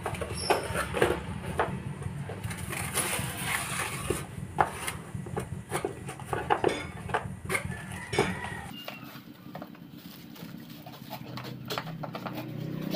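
Cardboard scope box being handled and opened: the lid and inner flaps rustle and scrape, with scattered clicks and knocks, and near the end paper wrapping rustles as the wrapped scope is lifted out. A steady low hum underneath stops about nine seconds in.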